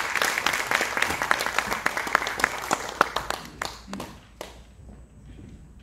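Audience applauding in a hall, dense clapping that thins out about three and a half seconds in, with a few last claps near four seconds before it dies away.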